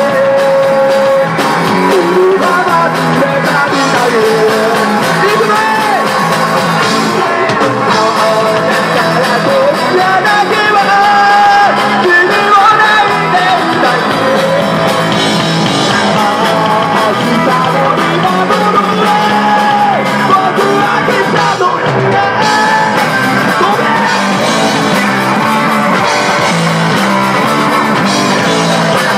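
Live rock band playing loud and without pause: electric guitars, bass and drum kit, with a singer singing lead over them.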